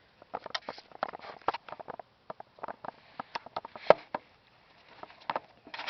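Handling noise on the camera: irregular clicks, taps and rustles close to the microphone, with one sharp knock about four seconds in.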